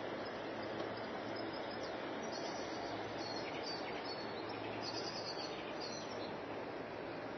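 A few short, high bird chirps over a steady rushing background noise.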